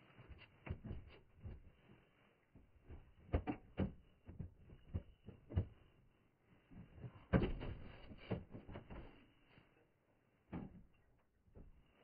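Irregular small clicks and knocks of hands handling wires and a tool at a furnace's control board and sheet-metal cabinet, the loudest clatter about seven seconds in.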